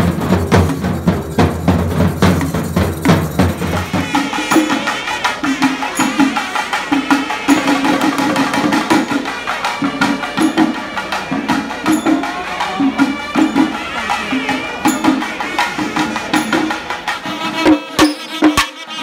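Sinkari melam, a Kerala chenda drum ensemble, playing a fast beat. About four seconds in the deep low drumming drops away, and a repeated mid-pitched drum pattern comes in under a wavering high melody line. Sharp strokes come near the end.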